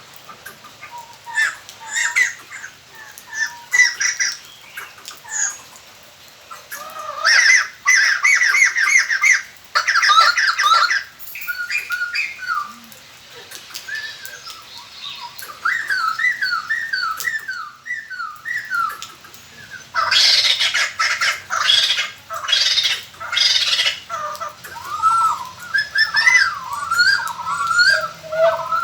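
White-crested laughingthrushes calling: bursts of loud, harsh cackling chatter alternate with runs of quick, slurred whistled notes. This is a lure-call recording used to draw wild laughingthrushes in.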